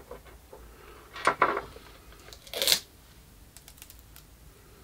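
Small parts being handled on a workbench: a few short clicks and rustles, about a second in and again near the middle, then a run of faint light ticks.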